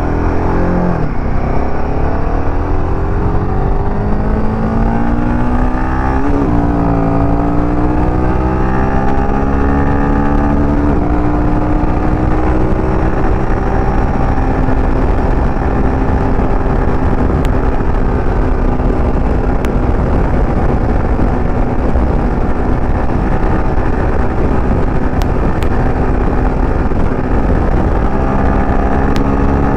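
Royal Enfield Himalayan 450's 452 cc single-cylinder engine accelerating hard through the gears at highway speed, heard from the rider's seat. Its pitch climbs, dips at gear changes about 6 and 11 seconds in, then holds high and slowly rises, over heavy wind rush.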